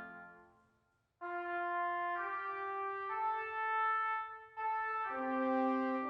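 Music of slow, sustained brass chords, the notes changing about once a second, coming in about a second in after a brief silence and pausing briefly past the middle.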